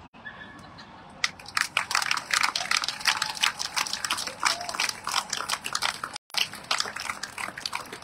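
Ringside audience clapping, starting about a second in, with a brief cut in the sound near the end.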